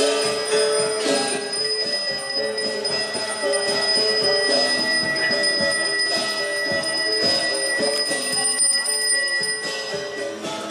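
Balinese priest's hand bell (genta) rung continuously in a steady, unbroken ring, which stops shortly before the end, over lower shifting musical tones.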